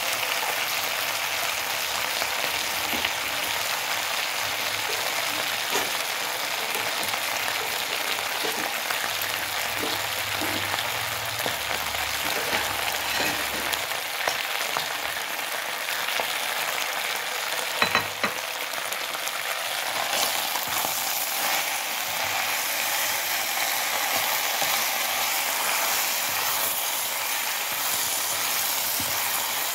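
Macaroni and beef stir-frying in a pan: a steady sizzle with stirring, kept going a while so the seasonings soak in. A single sharp knock about two-thirds of the way through.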